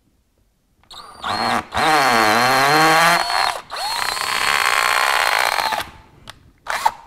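Cordless drill spinning a length of wire coat hanger up through a drywall ceiling to make a small test hole. After a short blip of the trigger, the motor runs in two bursts with a brief pause between. In the first burst its pitch dips as the wire bites and then climbs back. The second burst is steadier, and a couple of short clicks follow near the end.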